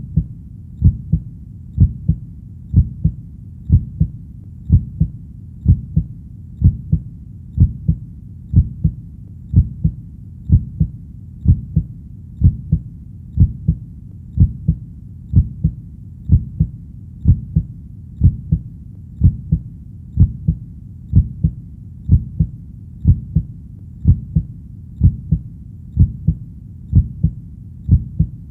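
Heartbeat: steady paired lub-dub thumps, about one beat a second, low and even throughout.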